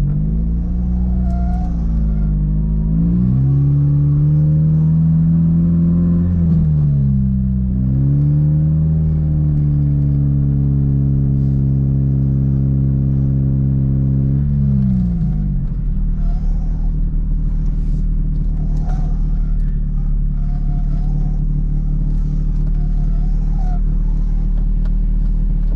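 Toyota MR2 engine accelerating through the gears. The pitch climbs and drops back at each shift, twice in the first several seconds. It then holds a steady high pitch, winds down about fifteen seconds in, and settles into a steady lower drone.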